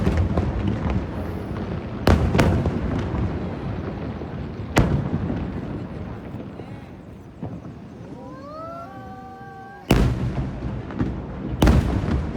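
Fireworks shells bursting over the sea: six loud bangs, each with a rolling echo tail. Between the bursts a rising whistle is heard just before a bang near the end.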